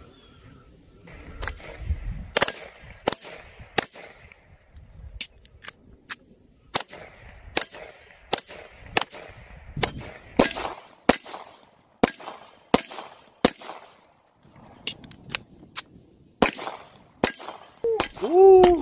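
Sig Sauer P226 Legion RXP single-action-only pistol being fired: a string of single shots at a steady, deliberate pace of about one to two a second, each with a short echo, with a brief pause shortly before the end.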